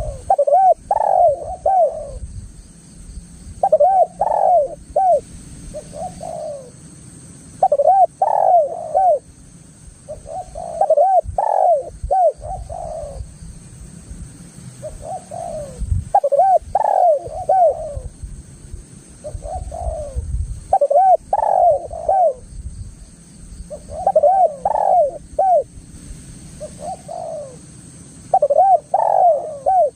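Spotted dove (tekukur) cooing: phrases of several quick, arched coo notes, a new phrase every two to three seconds, over a low rumble.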